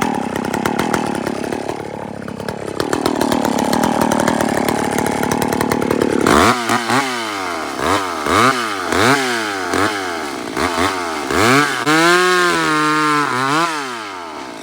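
Two-stroke chainsaw cutting under load, its engine pitch sagging and recovering in the wood. About six seconds in it comes clear and is revved repeatedly, the pitch swinging up and down, with one longer rev held near the end before it drops back.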